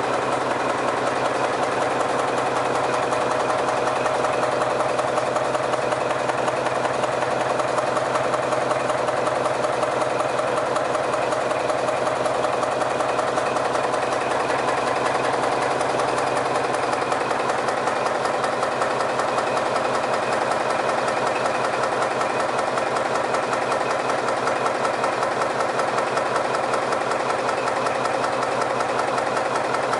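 B&W Alpha marine diesel engine running steadily, heard close up in its engine room, with a fast, even knocking beat from its firing.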